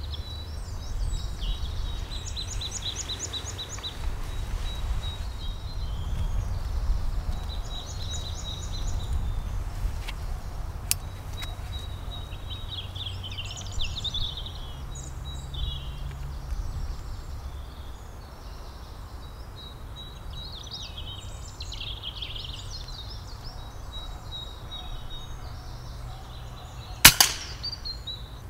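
Woodland birds singing repeated high trills and chirps; about 27 seconds in, a single sharp crack of an FX Impact Mk2 PCP air rifle firing, the loudest sound of all.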